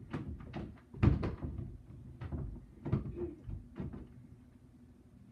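A series of knocks and thumps in a room, the loudest about a second in, then several quieter ones over the next three seconds, like doors or cupboards being handled.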